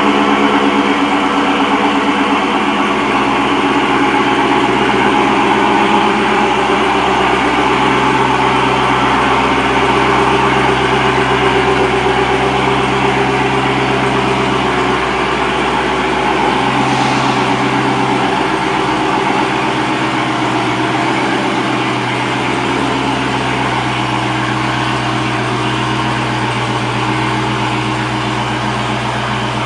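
2021 C8 Corvette Stingray's 6.2-litre LT2 V8 running at idle, its pitch shifting a step a few times.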